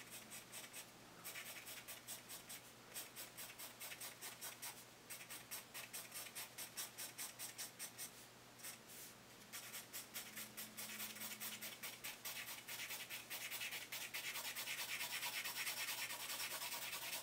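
Graphite pencil hatching on sketchbook paper: quick scratchy back-and-forth strokes, about four or five a second, broken by a few short pauses and running denser and steadier in the last few seconds.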